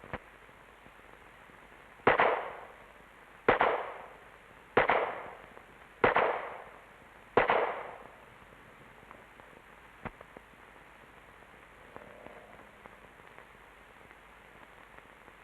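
Five pistol shots fired at an even pace, about one every 1.3 seconds, each loud report trailing off in a short echo, followed by a faint click.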